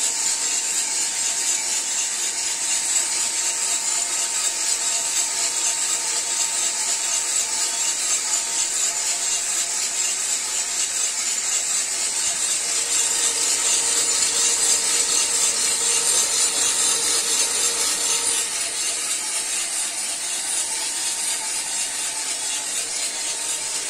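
Cormorant CR600 electric coffee roaster running mid-roast, just past first crack: steady rattling of beans tumbling in the turning drum over a constant high fan hiss.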